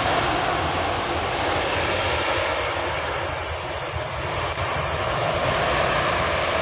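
Airbus A320 jet engines running loud and steady as the airliner rolls along the runway after landing.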